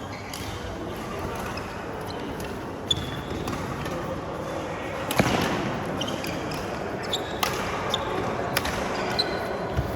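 Badminton play: sharp clicks of rackets striking the shuttlecock, irregularly a second or so apart, the loudest about five seconds in, with a few short high squeaks. Under them runs a steady murmur of voices.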